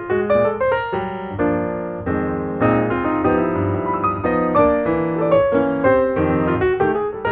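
Background piano music: a tune of quick notes, with a stretch of longer held chords in the middle.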